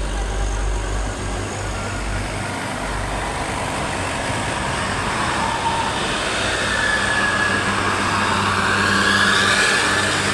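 Bus running on the road: engine rumble and tyre noise, with a rising whine that grows louder toward the end as it draws near.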